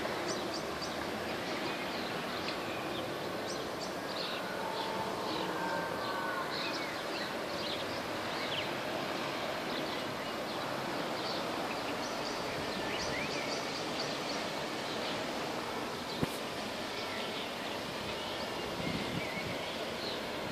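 Steady outdoor city background noise with birds chirping repeatedly, most often in the first half. A single sharp click about 16 seconds in.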